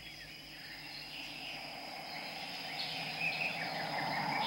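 Insects chirping: a steady high trill with scattered short chirps over a soft background haze, slowly getting louder.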